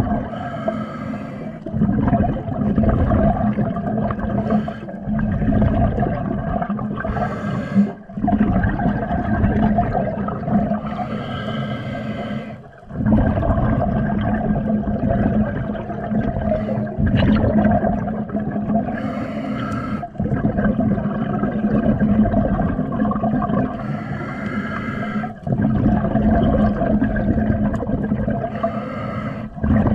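Underwater sound during a dive: muffled water noise over a steady low hum, with short hissing bursts every few seconds.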